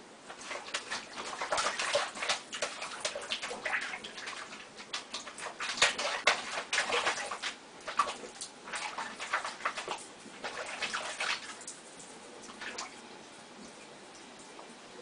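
Water splashing and sloshing in a sink as a cat paws at it, with scattered light knocks. The splashing goes on in irregular spurts and dies down about 11 seconds in.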